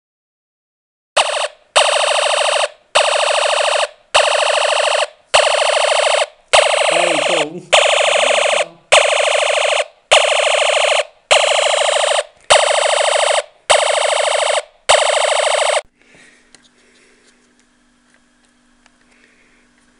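Snap Circuits electronic sound module playing a loud, repeating alarm through its speaker: a harsh buzzing tone pulsing on and off about once a second, about a dozen times, then cutting off near the end and leaving only a faint low hum.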